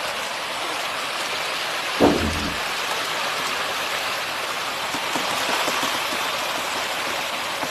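Steady hiss of heavy rain, even throughout, with a short low shout about two seconds in.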